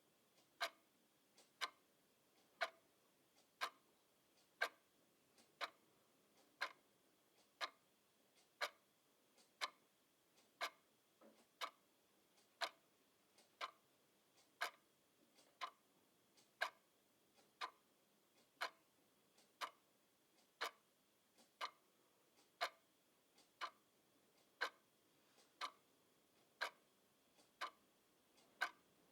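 Clock ticking steadily, about one sharp tick a second, at a quiet level.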